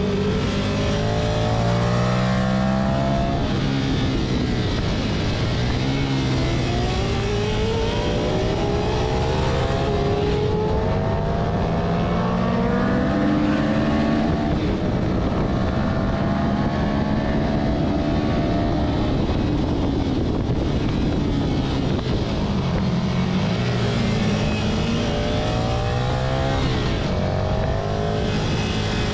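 Ducati Monster 659's air-cooled L-twin engine at racing speed from on board, revving up through the gears again and again, its pitch climbing for a few seconds then dropping at each shift and easing off for corners, over steady wind rush.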